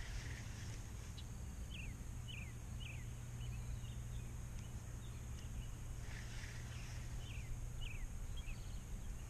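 A bird singing two short runs of three or four quick downslurred notes, the second run starting about five seconds after the first, over a steady low outdoor rumble and a faint steady high-pitched tone.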